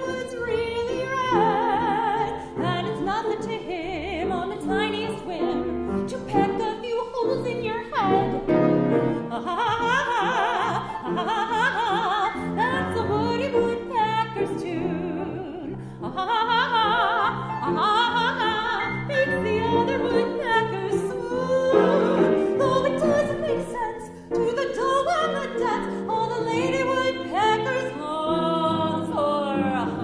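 A woman singing with vibrato to piano accompaniment.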